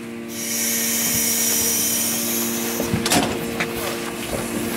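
Boat davit winch lowering a small rescue boat: a steady mechanical hum, with a high hiss that stops a little under three seconds in, followed by a clunk.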